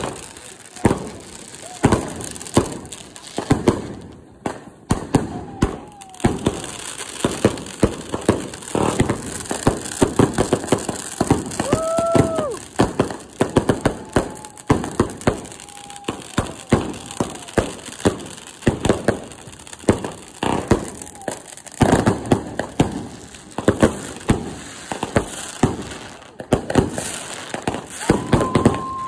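Consumer fireworks going off: fountains and aerial items crackling and popping in quick succession. Several short whistles sound over the crackle, one rising and falling about twelve seconds in.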